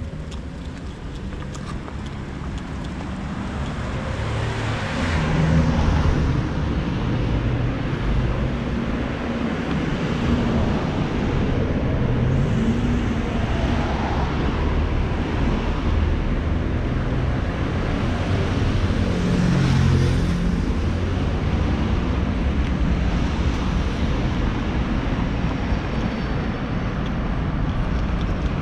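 Road traffic: cars driving past close by one after another, each swelling and fading, over a steady low rumble.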